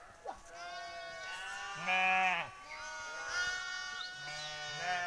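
Sheep and goats bleating, several overlapping calls one after another, the loudest about two seconds in.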